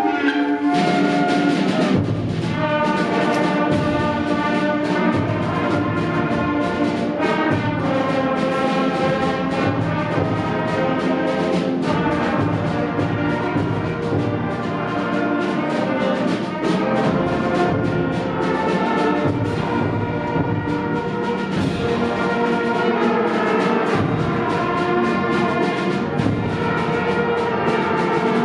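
School concert band playing a holiday fanfare: full brass and woodwinds sounding bright melodies over rhythmic percussion, with the music running on without a break.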